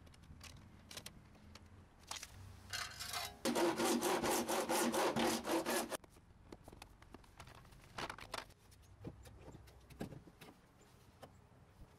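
A hand saw cutting through plastic in quick back-and-forth strokes for about two and a half seconds in the middle, then stopping. Faint knocks and clicks of handling come before and after.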